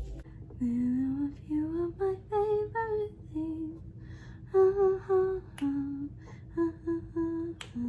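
A woman humming a tune to herself without words, a string of short held notes stepping up and down in a melody.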